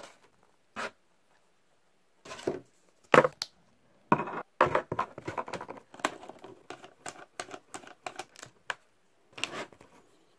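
Handling noises: plastic packaging rustling and scraping, then an irregular run of clicks and scrapes as a Rode VideoMic GO is slid onto a camera's hot shoe and its cable is plugged into the mic jack.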